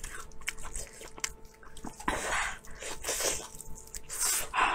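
Close-miked wet eating sounds: a person chewing and slurping soft food, with small smacking clicks and three louder squelching slurps about two, three and four and a half seconds in.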